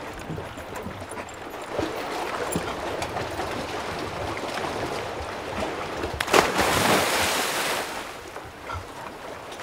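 A body plunging into lake water off a dock: one sudden loud splash about six seconds in, then a second or so of churning water settling, over steady wind and lapping water.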